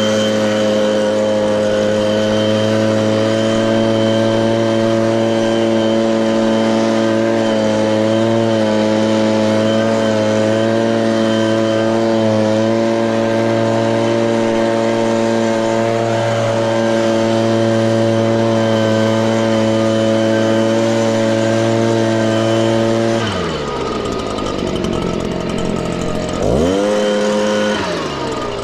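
Petrol leaf blower running steadily at full throttle, blowing loose sand off a freshly re-sanded driveway. About 23 seconds in the throttle is let off and the engine drops to idle, then it is revved back up a few seconds later, with a brief dip near the end.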